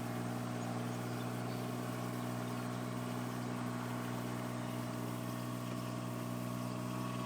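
John Deere tractor engine running steadily at a constant speed, as the lift tractor for the antenna.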